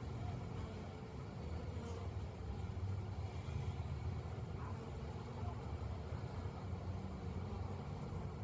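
Honey bees buzzing steadily around the hive, over a low steady rumble.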